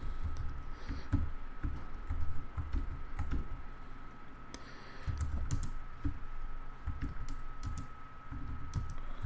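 Typing on a computer keyboard: irregular keystroke clicks in short runs, with a faint steady high tone underneath.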